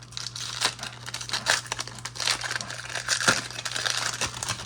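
Foil trading-card pack wrapper crinkling and rustling in the hands, with a run of irregular sharp crackles as it is handled and opened.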